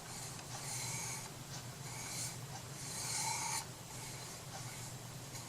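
Scratchy rubbing strokes across paper and wood, about three longer strokes with short pauses between them.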